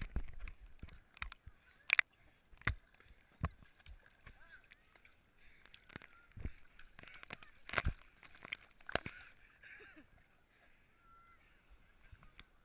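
Water splashing and slapping against a waterproof camera housing at the water's surface, about ten sharp irregular slaps, over faint distant voices.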